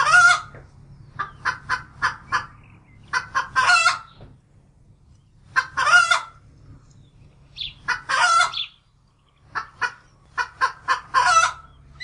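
Plush egg-laying toy hen clucking: runs of quick short clucks and longer cackles, repeating every couple of seconds, over a low steady hum.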